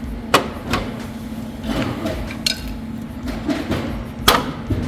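A few sharp plastic clicks and knocks, the loudest near the end, as the snap pins holding a plastic bumper trim piece are popped out and the trim is handled.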